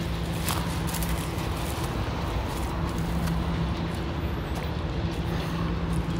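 An engine running steadily: a low rumble with a hum that swells and fades a few times.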